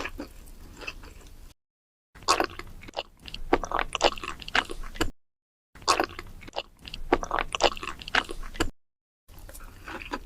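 Close-up eating sounds: crunchy bites and wet chewing, in short clips broken three times by abrupt gaps of dead silence.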